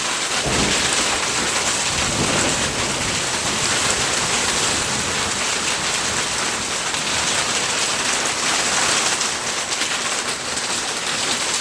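Heavy rain pouring down steadily in a thunderstorm, a dense, even hiss.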